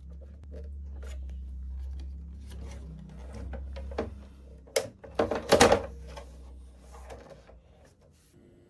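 Clicks and knocks of hands working on a keyboard's plastic casing and parts, with a louder clatter about five and a half seconds in, over a low steady hum that stops near the end.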